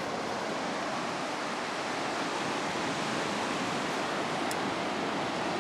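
Ocean surf breaking and washing in on a flat sandy beach, heard as a steady, even rush of noise.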